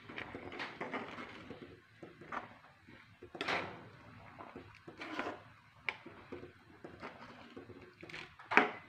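Metal spoon stirring thick chickpea curry in a metal pan, scraping and knocking against the pan now and then, with a sharp, louder knock near the end.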